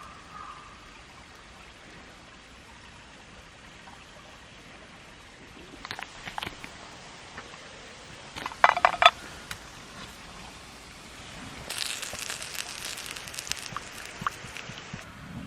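Camp cookware being handled: a few light clicks, then a bright metallic clink-and-ring about halfway, followed by a hissing, crackly noise over the last few seconds.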